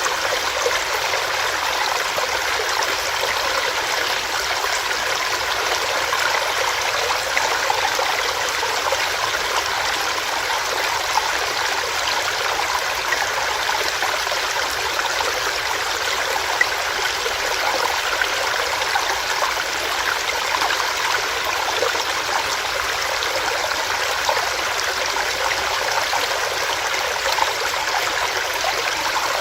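Small stream running over rocks: a steady rush of water with fine splashing and gurgling.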